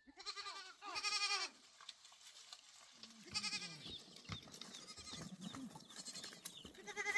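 Goats bleating: two loud, wavering bleats in the first second and a half, further bleats from the herd after that, and another loud one at the very end.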